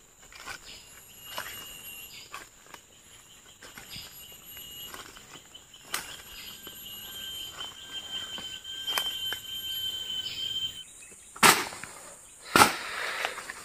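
Forest insects buzzing steadily at a high pitch, with a higher pulsing trill that joins for a few seconds in the middle. Scattered faint clicks, then two loud knocks with a rustle near the end.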